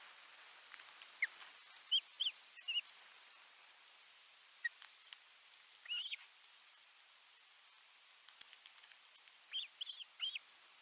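Nestling birds giving thin, high-pitched squeaky begging calls in short bursts about 2, 6 and 10 seconds in, with scattered tiny clicks and chirps between: chicks begging as a parent brings food.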